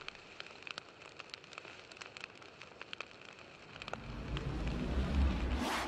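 Fire sound effect for a flaming logo animation: sparse crackling and popping over a faint hiss as a boom dies away, then a low rumble swelling up over the last two seconds and a short rising whoosh at the very end.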